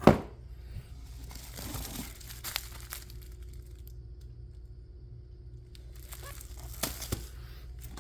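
Crinkling and rustling of plastic-wrapped fireworks packages being handled, with a single sharp snap or knock right at the start.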